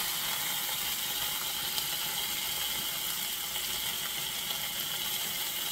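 Steak searing in hot oil in a Le Creuset enameled cast-iron skillet, a steady sizzle.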